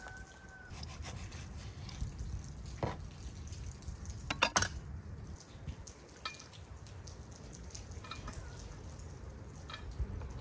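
Raw chicken being cut up with a knife on a wooden board and the pieces handled into a bowl: soft wet squishes and scattered light knife and dish clicks, with a cluster of sharper clicks about halfway through.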